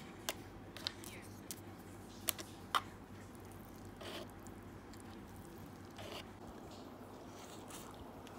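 Plastic fork stirring and tapping in a cup of instant noodles: a scatter of sharp light clicks, with soft eating sounds, over a low steady room hum.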